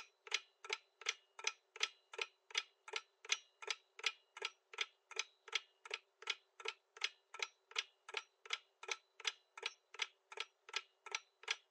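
Countdown-timer ticking sound effect: evenly spaced clock-like ticks, about three a second, marking the time to answer a quiz question.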